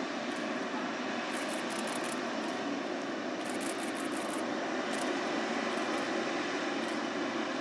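Distant jet engine noise from a Boeing 777-300ER's GE90 turbofans: a steady rushing sound as the airliner rolls down the runway after landing.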